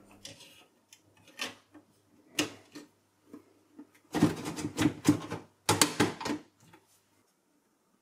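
Handling noise inside a desktop PC case: a few sharp plastic clicks as power and SATA connectors are pushed onto the SSD, then two louder bursts of metal clatter about four and six seconds in as the steel drive cage is swung back down into the chassis.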